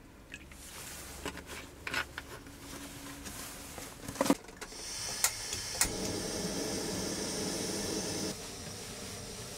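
Water poured from a plastic bottle into a stainless steel cup on a portable gas stove, then a few sharp clicks as the stove's igniter is worked and the burner lights with a steady hiss, which drops a step as the flame is turned down near the end.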